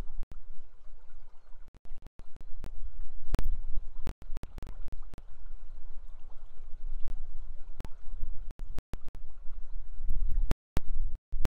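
River water and wind noise on an outdoor webcam microphone: a steady low rumble with a faint hiss above it, broken by several brief cutouts to silence and a few clicks.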